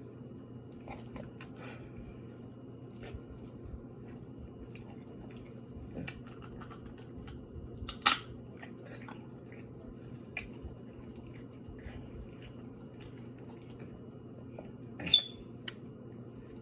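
A person eating seafood close to the microphone: quiet chewing and small clicks over a steady low hum, with two sharp, loud snaps, about halfway through and again near the end.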